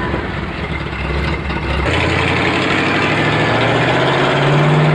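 Engine of an old utility truck running, its pitch rising gradually from about two seconds in as the truck pulls away.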